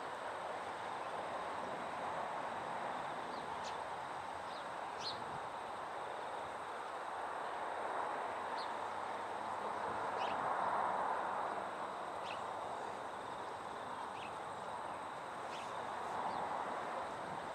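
Rural outdoor ambience: a steady background hiss that swells slightly about ten seconds in, with scattered short, high bird chirps.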